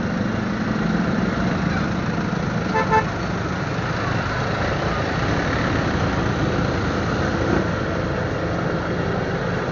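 Steady motorcycle riding noise, engine and wind, with a short vehicle horn beep about three seconds in.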